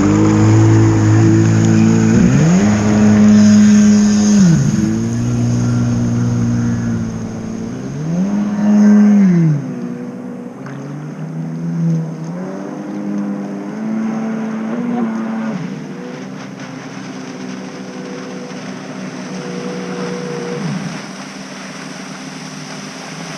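Yamaha Wave Raider jet ski's two-stroke engine running at a high idle, revved up and back down twice in the first ten seconds, then running lower until it dies away about 21 seconds in. The idle is set way too high.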